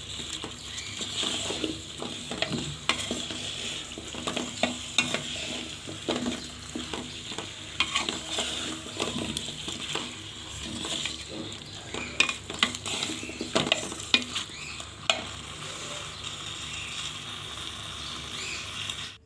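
Chicken and potato curry frying and sizzling in a metal pot while a wooden spatula stirs it. The spatula knocks and scrapes against the pot in frequent, irregular clicks over a steady sizzle, and the stirring thins out near the end.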